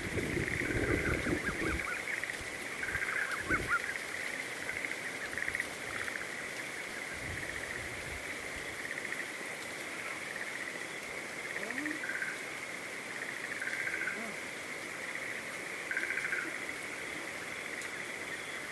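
Outdoor nature ambience: a steady high-pitched insect-like drone, with short repeated animal calls every couple of seconds. A few low thumps sound in the first few seconds.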